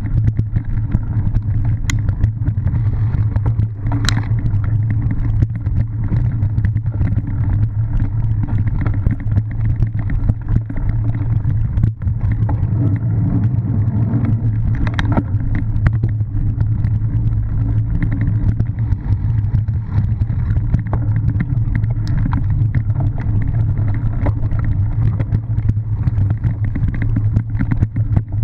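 Cyclocross bike ridden fast over grass and dirt, making a steady rumble with wind on the bike-mounted microphone. Scattered clicks and knocks come from the bike rattling over rough ground, the loudest about four seconds in and again about fifteen seconds in.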